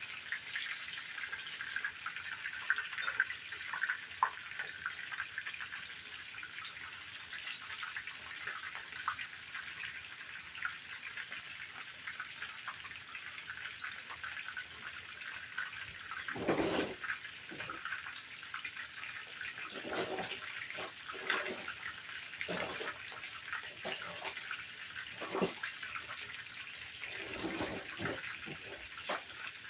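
Flour-dusted chicken leg quarters searing in shallow oil in a large skillet: a steady sizzle with fine crackles, and a few louder knocks from about 16 seconds in.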